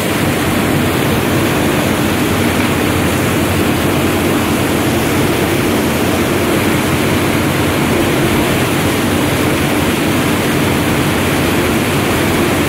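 Steady rush of churning boat-wake water, with the towing boat's engine giving a steady hum underneath.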